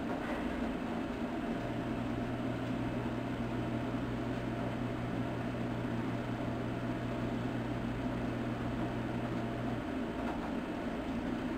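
Steady low mechanical background noise, with a low hum that comes in after about a second and a half and stops near the end.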